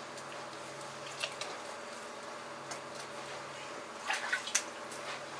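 Wet handling sounds of a whole kanpachi (greater amberjack) being gutted by hand: a few short squelches and taps as the gills and innards are pulled free, clustered about four seconds in, over a steady low hum.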